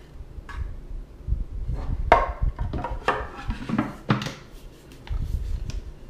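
A small wooden box and its lid being handled, knocking and clicking against each other as the lid is fitted on. There are several light knocks, the loudest about two seconds in and again about four seconds in, over low rumbling handling noise.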